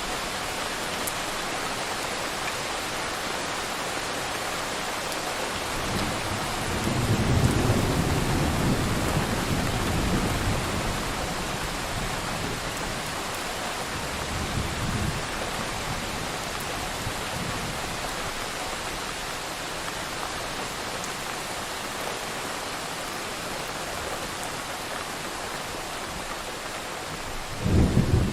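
Thunderstorm: steady heavy rain, with a long rolling rumble of thunder starting about six seconds in, a smaller rumble around the middle, and a sharp thunderclap near the end.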